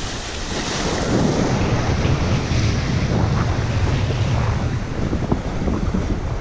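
Wind buffeting the microphone over the steady wash of sea waves.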